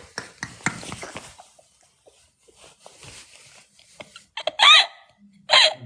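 A man laughing hard in bursts, then two loud, high-pitched shrieks near the end, each under half a second.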